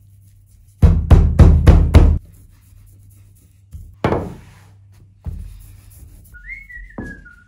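Wooden rolling pin beating a disc of rested shortcrust pastry on a wooden board: about five heavy thuds in quick succession about a second in, then two single knocks as the dough is turned and rolled.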